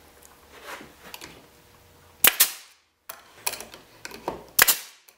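Brad nailer firing 1-inch brads into a mitered poplar frame corner: two sharp shots about two seconds apart, with lighter knocks of wood being handled between them.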